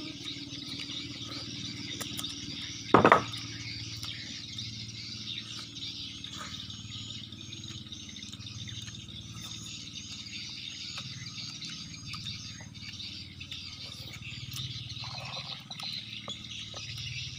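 Outdoor ambience of insects and birds chirping steadily, with a run of short repeated chirps in the middle. A single loud thump comes about three seconds in.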